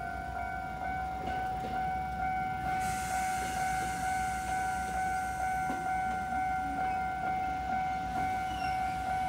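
Japanese level-crossing warning signal sounding its steady electronic bell tone at a lowered crossing gate. The running noise of an approaching Iyotetsu Takahama Line electric train comes in as a hiss about three seconds in and slowly grows louder.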